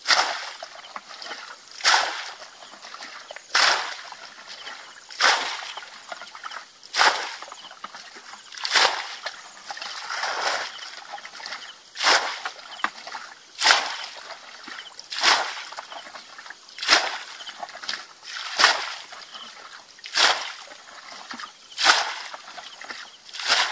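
Muddy water being bailed out of a shallow pool with a bucket: a splash about every second and a half as each bucketful is scooped and thrown out, with quieter sloshing between.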